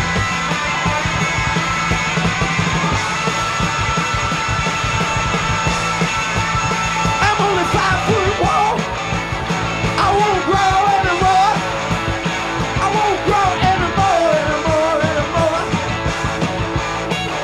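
Live punk rock band playing loud, with electric guitars, bass guitar and drums. From about seven seconds in, wordless yelled vocals waver over the band.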